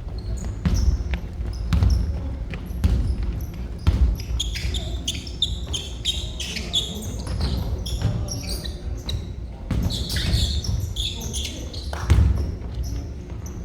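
Basketball bouncing on a gym floor during a game, heavy thuds about a second apart with the loudest near the end. Clusters of sneakers squeaking on the hardwood about halfway through and again later, with some players' voices. Everything rings in a large hall.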